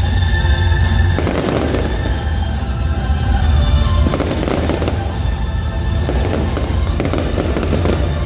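Fireworks crackling in repeated bursts, about a second in, around four seconds and again near the end, over loud music with a heavy, steady bass.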